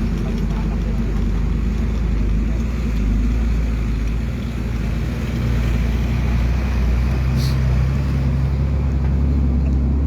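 An engine running steadily, a deep hum with little change. There is one short sharp click about seven and a half seconds in.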